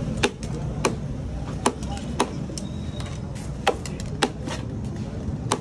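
A metal serving scoop knocks and clinks against the steel platter and plate as rice pulao is dished out: about seven sharp knocks at uneven intervals over a steady low background hum.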